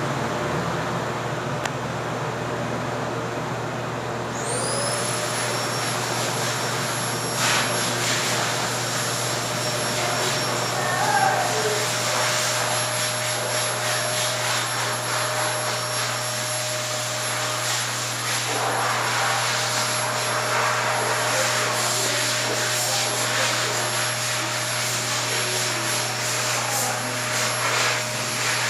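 Arge 50 cm oscillating wall fan running, a steady low hum under the rush of air. About four seconds in, a high-pitched whine rises quickly and then holds steady alongside it.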